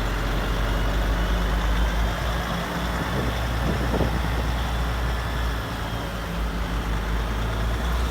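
A truck engine running steadily, with a short whine that falls and rises again about four seconds in.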